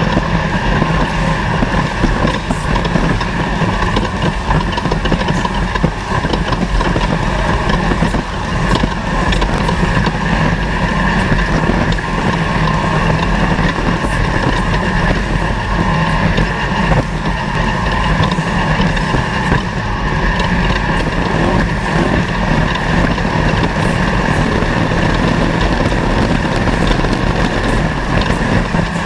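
Off-road desert race car running under way, with continuous, steady engine and driving noise.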